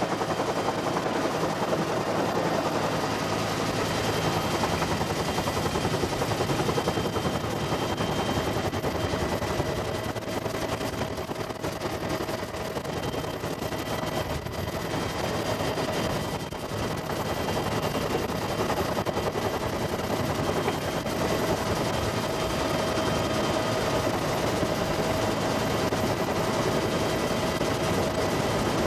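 Military helicopter running steadily: a rapid, dense rotor beat with a constant high turbine whine, at close range.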